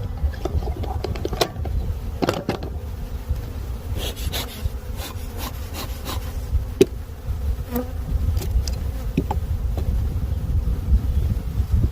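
Honeybees buzzing steadily, with scattered light clicks and knocks of hive equipment being handled and a low rumble underneath.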